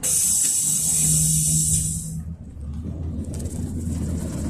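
Inside a PAZ-32053 bus: a sudden loud hiss of released air lasts about two seconds. Then the bus's ZMZ-5234 V8, running on LPG, pulls with a low rumble that grows from about three seconds in.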